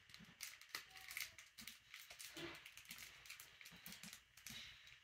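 Faint crinkling and rustling of a clear plastic sleeve being opened by hand, with scattered small ticks.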